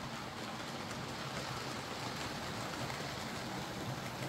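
OO gauge model goods vans rolling along the layout's track, a steady running rumble of small wheels on rail.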